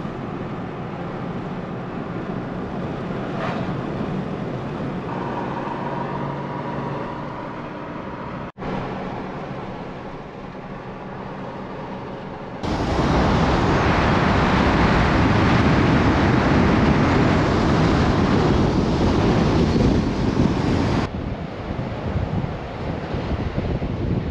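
Toyota Tacoma pickup driving at highway speed: steady engine and road noise heard through the vehicle. About halfway there is a sudden jump to a much louder rush of wind on the microphone lasting several seconds, which then drops back.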